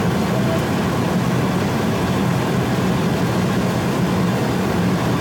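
Steady flight-deck noise of an Airbus A310 airliner on approach: an even rush of airflow and engine drone with a strong low hum, holding level throughout.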